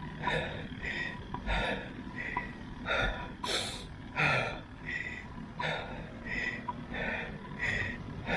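A cyclist's fast, heavy breathing, about one and a half breaths a second, out of breath from riding uphill.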